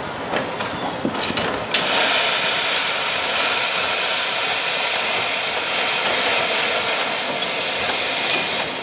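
Steam hissing loudly and steadily from a narrow gauge steam locomotive, escaping at track level; it cuts in abruptly about two seconds in, after a few clicks.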